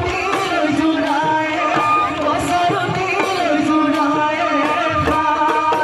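Assamese Bihu folk music: dhol drums beating in a steady rhythm under singing voices and a sustained melody line.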